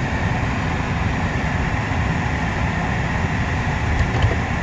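Steady low engine rumble with an even hiss above it, unchanging throughout.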